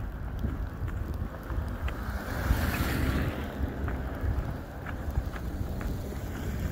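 Wind rumbling on the microphone over traffic on a slushy road. The hiss of tyres through wet snow swells, loudest about two and a half to three seconds in, then fades.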